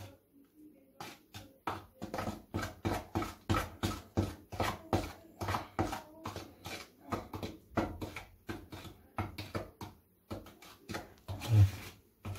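A metal knife stirring thick tile grout in a plastic bowl: a quick, irregular run of scrapes and clicks of the blade against the bowl, about three a second, with one louder knock near the end. The grout has been thickened to a paste for filling wide tile joints.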